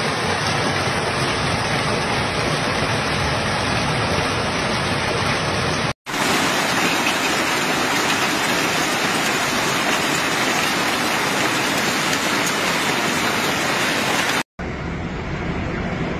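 Steady, loud noise of a heavy storm downpour, from several clips cut together: the sound drops out abruptly for a moment about six seconds in and again near fifteen seconds.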